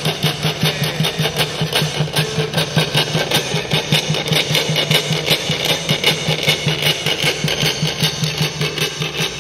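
Yaqui notched-stick rasps (hirúkiam) scraped over a gourd resonator in a fast, even rhythm of several grating strokes a second.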